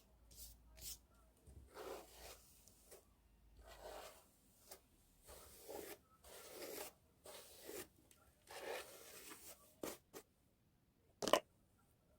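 Faint, irregular rustling and scraping, with a single sharp click about eleven seconds in.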